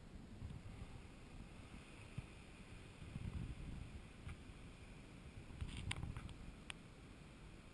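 Faint low rumble of ocean surf, swelling twice as waves break, with a few light clicks about six seconds in.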